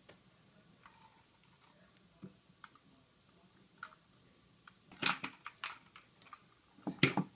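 Scattered clicks and knocks of a 3D-printed plastic prosthetic hand and arm being handled on a tabletop: a few faint ticks, a cluster of clacks about five seconds in, and the loudest knock about seven seconds in.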